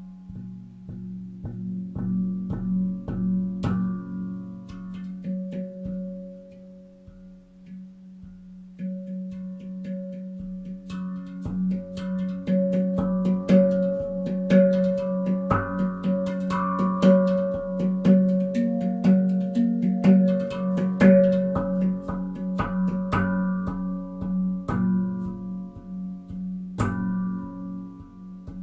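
Manik handpan tuned to an F#2 Nordlys scale, played with the fingertips: struck steel notes ring out over a sustained low hum. The playing thins out and drops in level about a quarter of the way in, then grows busier and louder through the middle.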